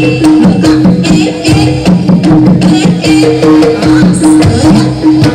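Live jaranan accompaniment: a Javanese gamelan-style ensemble of kendang hand drums and tuned gongs playing a loud, fast repeating pattern, with sharp drum strokes over short repeated gong notes.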